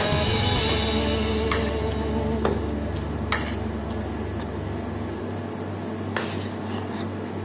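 Background music, with a few sharp clinks of a metal spoon and fork against a plate during eating.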